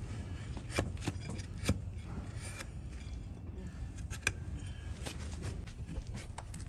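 A broad flat hoof-paring blade pushed through a donkey's hoof horn against a wooden block: scattered crisp cracks and scrapes, irregularly spaced, as slivers of horn shear off.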